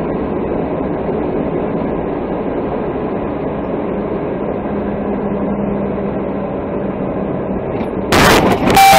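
Steady engine and road noise inside a moving vehicle's cab. About eight seconds in, a sudden loud crash as another car collides with it.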